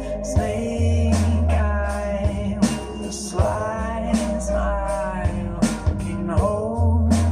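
A song with singing, drums and bass played through a stereo pair of Aiwa Exos-9 Bluetooth speakers set to full volume.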